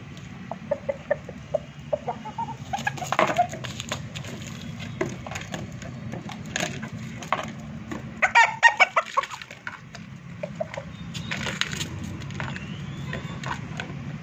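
Roosters clucking and calling in short bursts, the loudest about eight seconds in, over a steady low hum.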